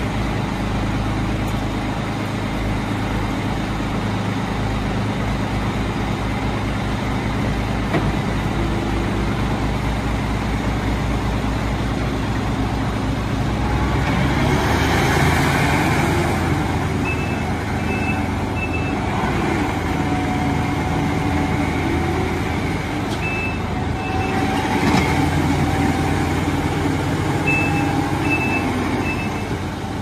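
Takeuchi TL10V2 compact track loader's 92 hp Kubota diesel running steadily, then revving up about halfway through as the machine moves and turns. Its backup alarm beeps in short runs of a few beeps, three times in the second half.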